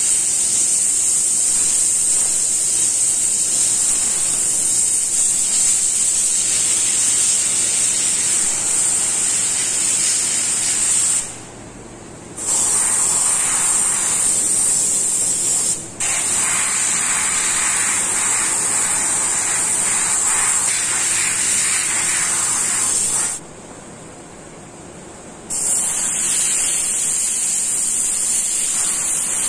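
Airbrush spraying paint, a steady high hiss of compressed air through the nozzle. It breaks off twice for a second or two as the trigger is let go, and briefly a third time.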